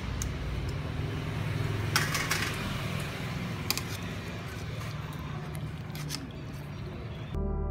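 A steel stockpot of beef tripe steaming over the heat: a steady rushing noise with a low hum, and a few sharp clicks as metal tongs knock against the pot. Music starts suddenly near the end.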